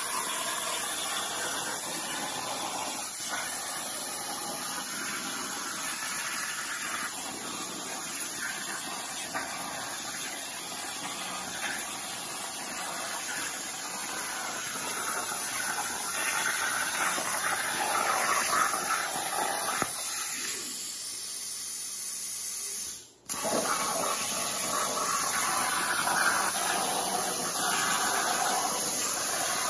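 Hypertherm 65XP plasma torch on a CNC table cutting sheet metal: a steady, noisy hiss from the cutting arc. A little over 20 seconds in, the cutting sound falls away for about two seconds and drops out for an instant, then the steady hiss resumes.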